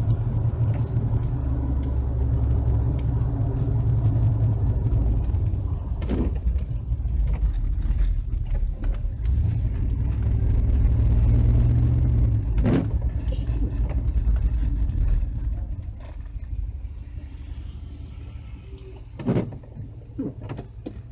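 Car engine and road rumble heard from inside the cabin while driving, dropping to a quieter level about five seconds before the end. A short knock comes three times, about every six and a half seconds.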